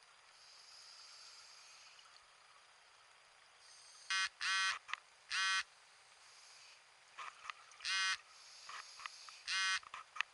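Scuba regulator breathing underwater: a faint hiss, then buzzy bursts of exhaled bubbles from the regulator's exhaust. There are two close together about four seconds in, one more a second later, and two near the end.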